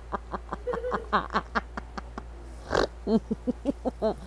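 A person's voice making quick, short pitched sounds in a steady rhythm, about five a second, with a louder breathy burst near the middle.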